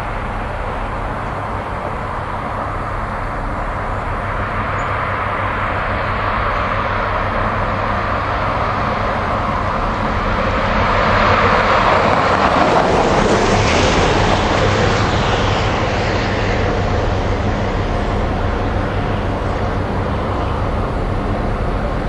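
Diesel locomotive engine running with a steady low hum as the locomotive approaches slowly. About halfway through, a car passing close by adds a swelling and fading rush of noise.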